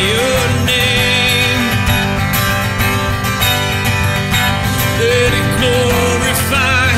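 Worship song: a man singing, holding long notes near the start and again near the end, over an acoustic guitar and a steady low bass.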